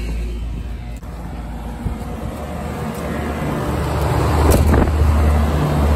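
Lennox 7.5-ton split-system heat pump outdoor units starting up in cooling mode: a low hum of compressor and condenser fan that grows steadily louder as they come up to speed.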